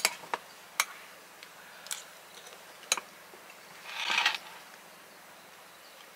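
Metal spoon clinking against a mug while stirring: about five sharp separate clinks over the first three seconds, then a short softer rustling sound about four seconds in.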